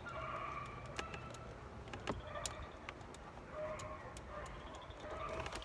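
A few faint, scattered clicks and knocks of hands working a car's side mirror loose from the door.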